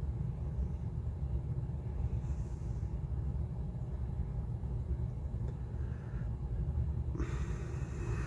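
Steady low rumble, with a brief breathy rush of hiss about seven seconds in.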